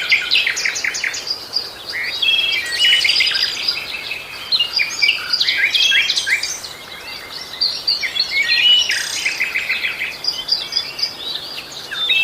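Several songbirds chirping and singing, a dense run of quick chirps and short trills with brief lulls.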